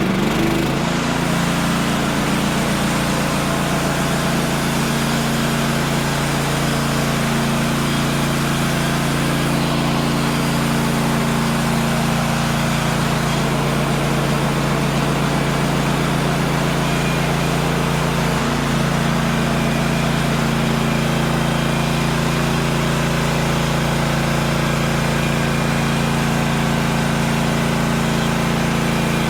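Woodland Mills HM126 portable bandsaw mill's small gasoline engine running steadily at full speed, as it does while the mill makes a cut.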